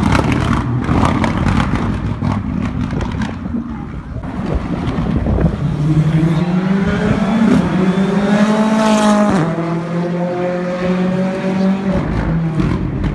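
Rally car at full throttle on a stage: a rapid run of sharp cracks and pops in the first few seconds, then the engine revving up in rising pitch, dropping suddenly as it shifts up a gear about nine seconds in, and pulling on at a steady note.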